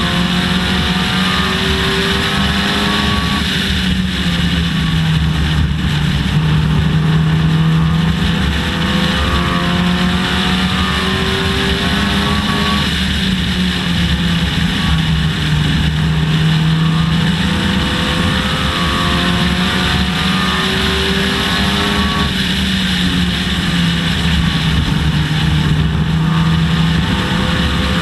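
Dodge Neon race car's four-cylinder engine at racing speed, its pitch climbing and then dropping back over and over as it accelerates and lifts through the laps, over steady road and wind noise.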